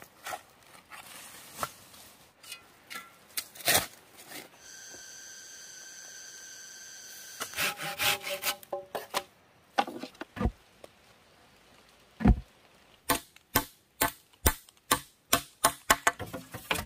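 Hand-tool work on soil and bamboo: a digging tool striking earth and a machete chopping a thick bamboo pole, the bamboo giving a short hollow ring. A steady high drone lasts a couple of seconds about five seconds in, and near the end come regular knocks, about two a second.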